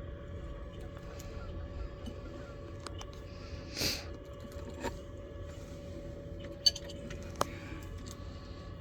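A few light clicks and clinks of handling, one much sharper than the rest about two-thirds through, with a brief rustle near the middle, over a steady low hum.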